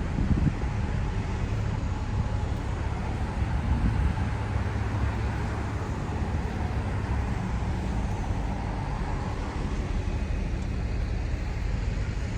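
Steady city street traffic noise from cars going by, low and continuous.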